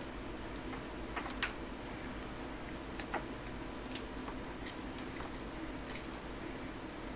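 A kitten playing on a desk: irregular light clicks and taps as its claws and paws bat the toy and objects on the hard surface, a dozen or so scattered through. Under them runs a steady low hum and hiss.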